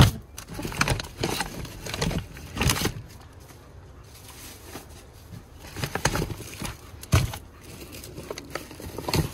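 Rubbish being rummaged through inside a bin: rustling plastic bags and packaging and knocks of plastic containers, in irregular bursts, with a sharp knock right at the start and a quieter spell in the middle.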